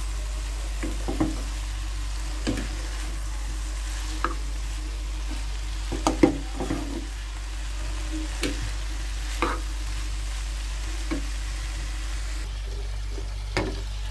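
A steel spoon stirring cauliflower, carrot and potato frying in a dark-coated pan, with a faint sizzle. The spoon knocks and scrapes against the pan every second or two, loudest in a quick cluster about six seconds in.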